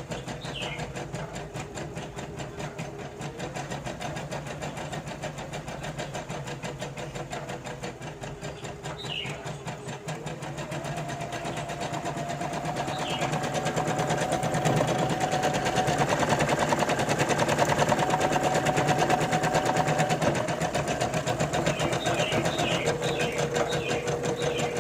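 Singer M200 embroidery machine running, its needle stitching in a fast, even rhythm over a steady motor hum. About ten seconds in the hum steps up in pitch and the machine gets louder, then it drops back down in pitch near the end.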